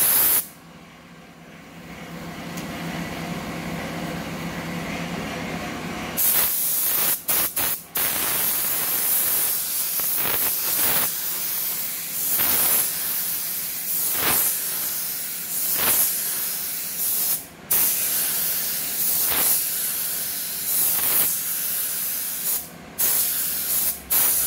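Gravity-feed spray gun spraying clear coat onto a car body panel: a loud steady hiss of compressed air and atomised lacquer in repeated passes, cut by brief gaps when the trigger is released. A quieter low hum comes first, and the spraying starts about six seconds in.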